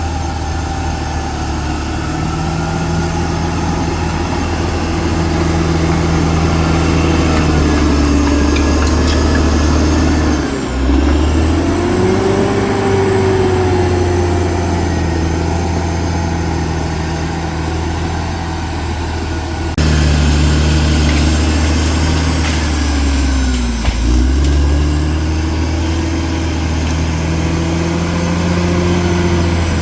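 CAT D6R XL bulldozer's diesel engine running under load, a steady low drone. Twice its pitch sags sharply and then climbs back as the engine is loaded and recovers. About two-thirds of the way through, the sound changes abruptly.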